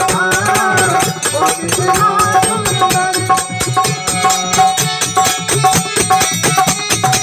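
Live devotional bhajan music in an instrumental passage between verses: a fast, dense percussion beat with a melodic instrument line over it.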